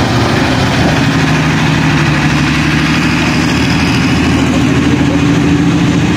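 Diesel engine of a heavily loaded cargo truck running at low revs as it pulls slowly past at close range, a steady low engine note.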